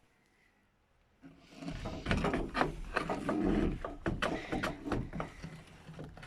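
Things being shifted and handled while clearing out a cluttered shed: a dense, irregular run of knocks, clatters and scrapes that starts about a second in.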